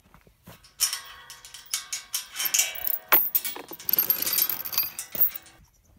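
Steel chain rattling and clanking against a metal tube farm gate as it is unfastened: a quick run of metallic clinks and jangles with a bright ringing, starting about a second in and stopping shortly before the end.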